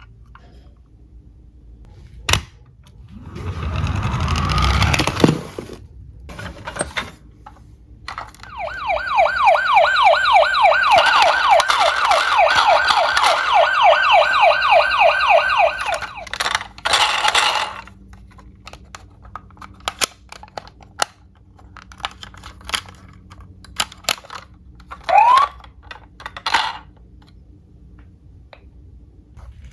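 An electronic emergency-vehicle siren sounds in a fast yelp, about four rising sweeps a second, for roughly eight seconds in the middle. Before it, a rumbling rattle swells and fades, like a diecast toy car rolling down a slope. After it come scattered small clicks and one short rising siren chirp.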